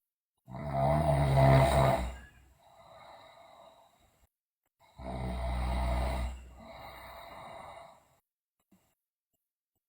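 A sleeping girl snoring loudly: two snores about four and a half seconds apart, each a loud stretch followed by a softer, quieter tail.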